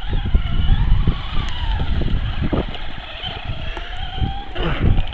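Electric RC cars' motors whining, the pitch rising and falling as the cars speed up and slow down around the track, over a low rumble.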